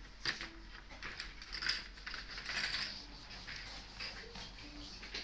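Pencil strokes scratching on sketch paper: irregular short scratches and light taps, some quick and closely spaced.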